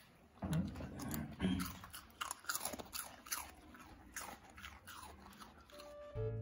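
A dog chewing food close up: a quick run of crisp crunches and bites.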